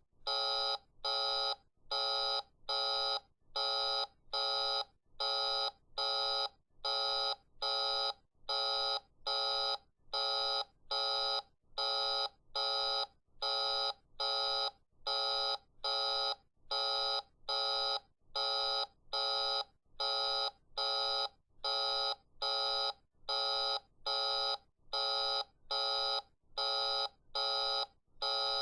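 Toy phone playing a busy signal: a short electronic beep repeated over and over at an even pace of a little more than one a second.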